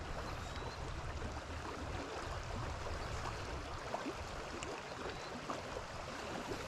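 Small waves lapping at a lakeshore: a steady wash of water noise, with a few faint ticks.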